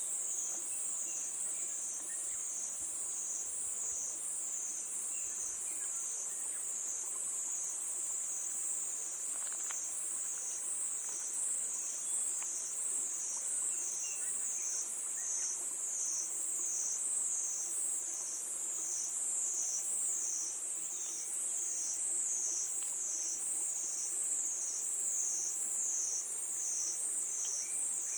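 Crickets chirring in a high, continuous chorus that swells and fades in a steady rhythm, a little more than once a second.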